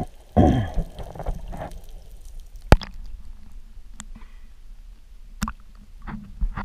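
Water sloshing and gurgling around a camera's waterproof housing as a freediver comes up to the surface, with a loud rush about half a second in and a few sharp clicks and knocks on the housing.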